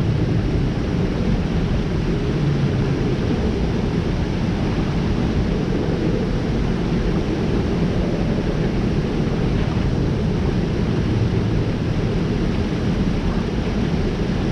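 Steady low rumbling noise with no clear tone or rhythm, unchanged throughout.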